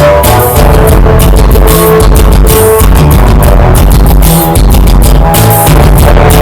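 Loud music with heavy bass and a steady beat, played back through speakers being sound-tested.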